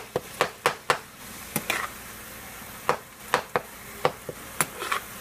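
A cooking spoon knocking and scraping against a frying pan as ground meat is stirred and broken up while it browns, a string of irregular sharp clicks, several a second at times.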